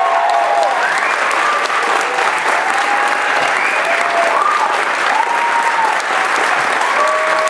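Theatre audience applauding a finished song, with cheers and whoops calling out over the clapping.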